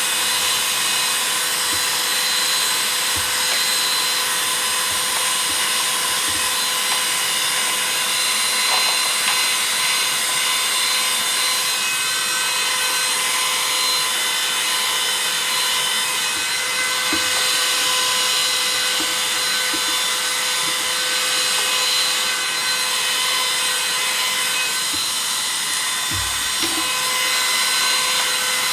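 Cleanmybricks small vacuum cleaner running steadily with a high motor whine as it sucks dust from between the studs of LEGO bricks. Faint knocks come from the nozzle touching the bricks near the end.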